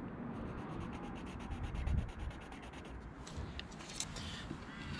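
Pencil scratching across a sheet of MDF as a line is marked out along a steel tape measure, in a quick, even run of strokes, with a few sharper scrapes near the end.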